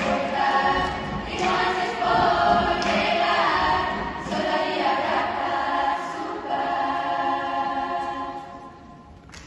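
A large girls' choir singing sustained chords in a few long phrases, the last chord dying away near the end.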